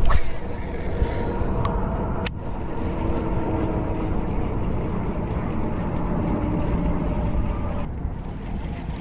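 Small boat motor running steadily, moving the boat across the water, with a sharp click near the start and another a little after two seconds.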